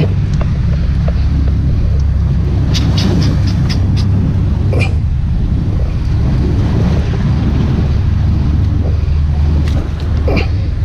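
Wind buffeting the microphone over the wash of sea on breakwater rocks, a loud steady low rumble. About three seconds in comes a quick run of sharp clicks, with a few single knocks later.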